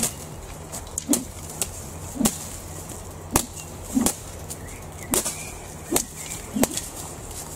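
A long thin wooden stick swung hard through the air, making about eight sharp swishes at uneven intervals of roughly a second.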